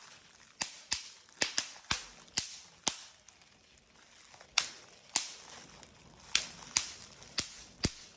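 Bubble wrap bubbles popping one at a time in an irregular run of sharp pops, about a dozen, with a pause of over a second near the middle.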